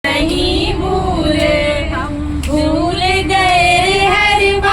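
A woman singing a Hindi film song, one voice in long held, gently wavering notes.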